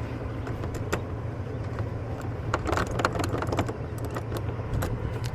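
Faint scattered metallic clicks of lock picks working a door-handle lock cylinder, in small clusters, over a steady low rumble.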